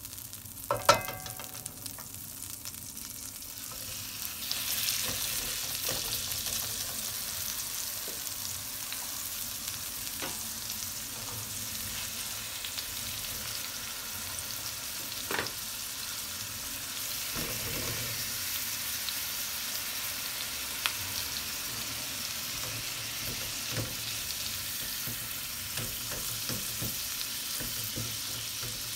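Slices of beef sizzling as they go into melted butter and oil in a stainless steel frying pan. The sizzle swells about four seconds in and then holds steady, with a sharp knock about a second in and a few scattered clicks.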